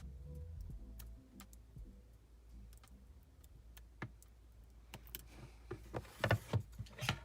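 Small hand tools clicking and scraping against a smartphone's frame and internals while its battery is being pried out. The clicks are sparse at first, then come thicker and louder with scraping from about five seconds in.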